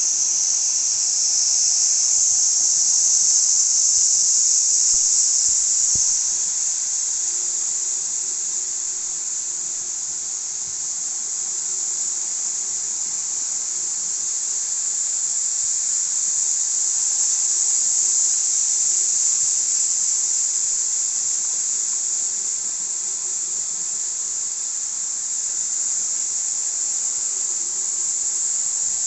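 N-scale model trains running around the layout, a steady high hiss and whine from the wheels on the track and the small motors. It swells and fades slowly as the trains come near and pass away.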